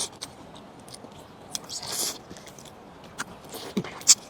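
Mouth sounds of eating: chewing with scattered wet clicks and smacks, a short noisy burst about two seconds in and a sharp click near the end.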